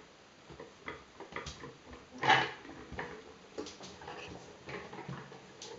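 Toddler's wheeled push cart clicking, rattling and knocking as it is pushed and turned, a series of scattered short knocks with the loudest about two seconds in.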